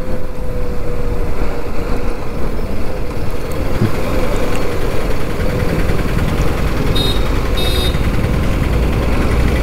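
TVS Apache RR 310's single-cylinder engine running as the motorcycle slows in traffic, its note sinking slowly, under heavy wind and road noise on the rider's camera. Two short high beeps near the end.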